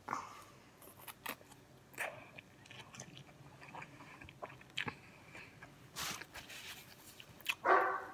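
Close-up chewing of food, with scattered small crunches and mouth clicks, and one louder, longer sound near the end.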